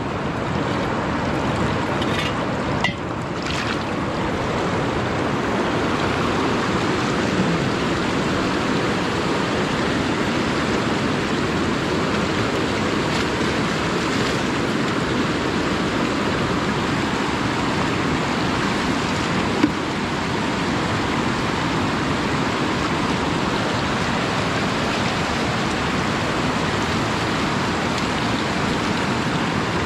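Fast-flowing river water rushing steadily, with a few light knocks in the first few seconds and one sharp click about twenty seconds in.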